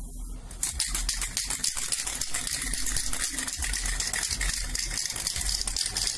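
Aerosol spray-paint can shaken fast, its mixing ball rattling in a rapid run of clicks that starts about half a second in.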